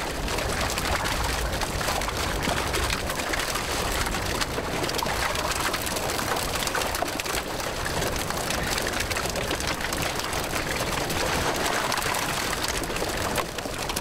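A boatload of freshly caught fish flapping and slapping against the boat's floor and each other, a dense, steady patter like heavy rain, with water splashing.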